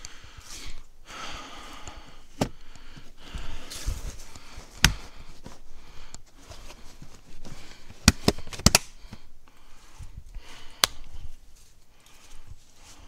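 Camping gear being handled and packed: rustling with several sharp knocks and clacks, including a quick run of four about eight seconds in.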